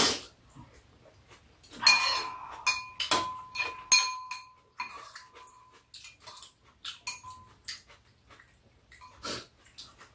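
Metal spoons and chopsticks clinking and scraping against bowls and a metal pot while eating noodles. One knock about two seconds in leaves a ringing tone that lasts about three seconds.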